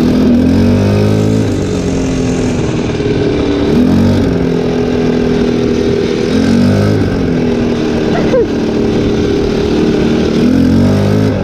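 ATV engine running under way, its pitch rising and falling several times as the throttle is opened and eased.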